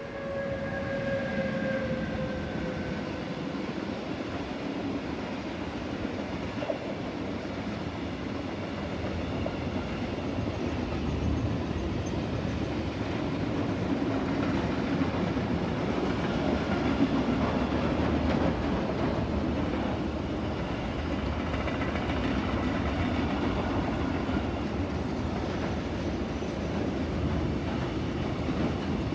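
Mixed freight train passing close by. Over the first few seconds the electric locomotive's whine falls slightly in pitch as it goes by, then a long, steady rumble of freight wagons rolling over the rails.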